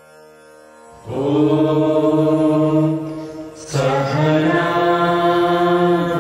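A group of men's and women's voices chanting a prayer in unison, coming in about a second in on a long held note. They break briefly for breath and then hold a second long note. A soft steady instrumental drone is heard before the voices enter.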